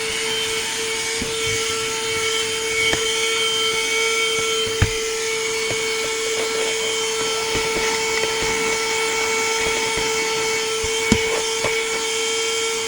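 Cordless portable car vacuum running steadily with a constant whine, sucking dirt and trash out of car carpet. Small clicks and ticks come from grit hitting the nozzle, with two sharper knocks, about five seconds in and near the end.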